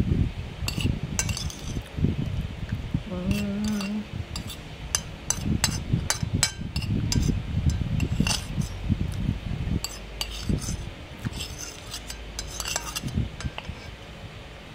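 A metal spoon repeatedly clinks and scrapes against a glass plate, gathering the last bits of food, with close-up chewing. A brief hummed note comes about three seconds in.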